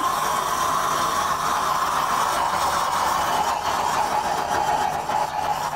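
Candy corn burning in molten potassium chlorate in a test tube: a loud, steady rushing hiss with a whistling tone that slowly drops in pitch. It is the sound of the sugar's rapid oxidation by the chlorate.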